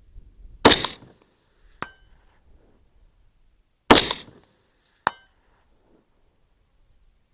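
Two AR-15 rifle shots with a 24-inch barrel, about three seconds apart. Each is followed a little over a second later by a fainter metallic ping with a brief ring: the bullet hitting a 10-inch steel gong 300 yards away, the delay coming from the distance.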